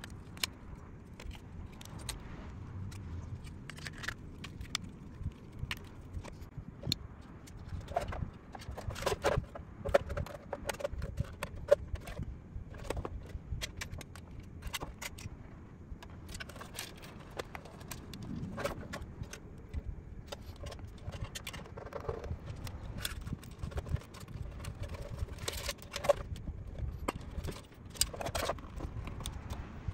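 Hard plastic model-kit display-base parts being handled and fitted together: scattered clicks, taps and light rattles, over a low steady background rumble.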